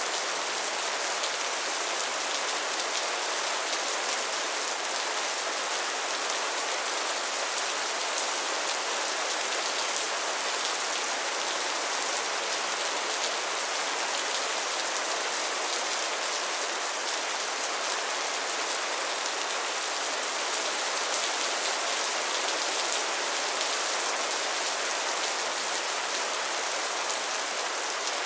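Steady rain falling and pattering on a surface, an even hiss of many fine drops with no let-up.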